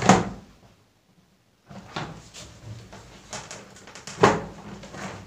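Hard plastic cabinet panel being pushed into the slots of the plastic base: sharp plastic knocks and clicks, one loud at the start and another about four seconds in, with smaller rattles between. The click is the sign that the panel's locking tab has snapped home and the joint is tight.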